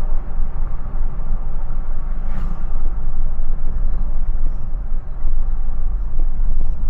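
Car driving along a road, heard from inside: a steady low engine and road rumble.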